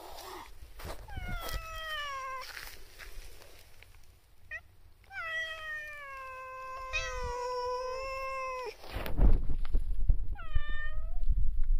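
Cats meowing: three falling meows, the middle one long and drawn out, the last one short. From about nine seconds in, louder low bumping and rustling noise comes over them.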